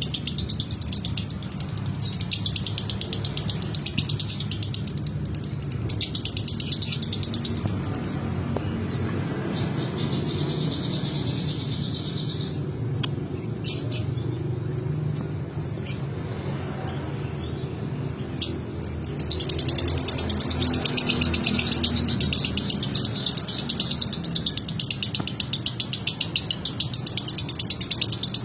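Male lovebird chirping in long, rapid chattering runs, with a lull in the middle before it starts up again; a steady high buzz and a low background rumble lie beneath.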